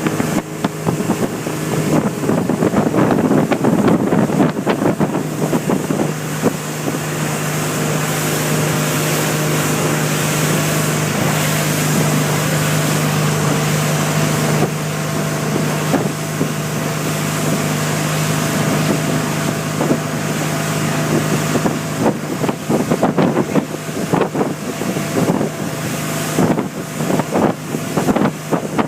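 Speedboat engine running steadily under way, with water rushing past and wind buffeting the microphone. Near the start and over the last several seconds the hull slaps repeatedly on the water.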